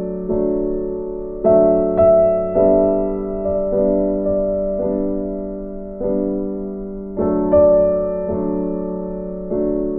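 Background music: slow, gentle keyboard chords, each struck and left to fade before the next.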